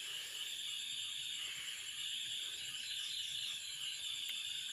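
Steady, high-pitched chorus of insects, a continuous shrill drone with a fast pulsing shimmer.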